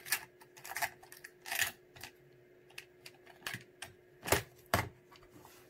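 Irregular light clicks and taps of small hard plastic fishing lures and their treble hooks being set into the slots of a plastic tackle box, with two louder clicks near the end.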